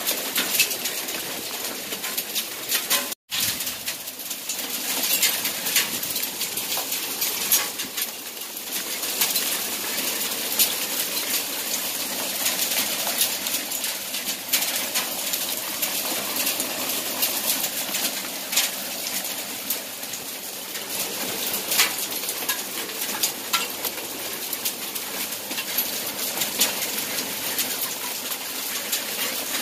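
Small hailstones and heavy rain falling on a wet balcony floor: a steady hiss with many sharp, irregular ticks of hail striking. The sound cuts out for an instant about three seconds in.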